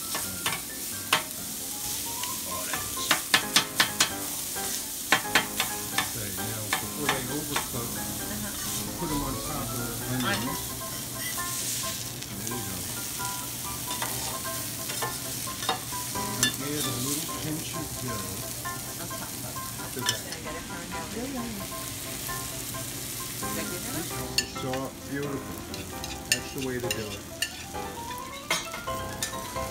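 Smoked salmon and red onions sizzling on a flat-top griddle, with a metal spatula scraping and tapping against the steel as they are stirred and chopped; a run of sharp clicks comes about three to five seconds in.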